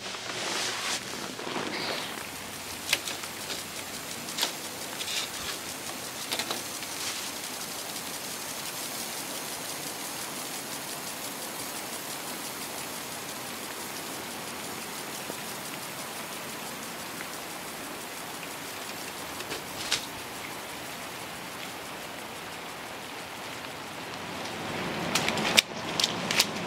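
Steady, even hiss much like rain, with a few sharp ticks or taps scattered through the first several seconds and one more about twenty seconds in; it grows louder and busier near the end.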